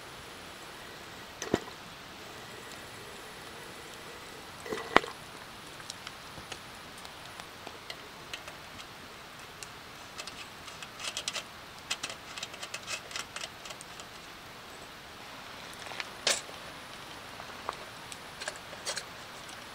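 Hands handling a metal hurricane oil lantern: scattered clicks, taps and a few sharper knocks, the loudest about 1.5, 5 and 16 seconds in, with a quick run of small clicks in the middle, over a faint steady hiss.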